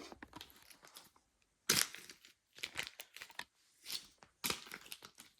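Packaging rustling and crinkling in irregular short bursts as the unboxing accessories are handled.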